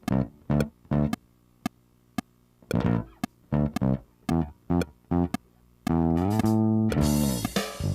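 Music: short, separate plucked bass-guitar notes with gaps between them. About six seconds in comes a held chord, with a bright crash or strum over it near the end.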